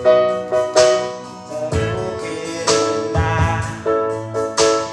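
Music: a slow Indonesian love ballad with struck accompaniment chords. A voice sings one drawn-out word a little past halfway.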